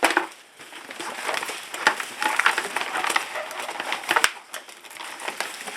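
Rocks clattering and grinding as they are put into the bottom of a plant pot, with a few sharp knocks near the start, about two seconds in and about four seconds in.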